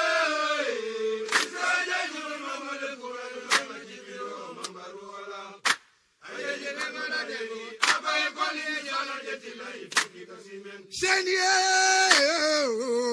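A group of men chanting together, with a few sharp claps. The chant breaks off for a moment about six seconds in, then resumes and swells again near the end.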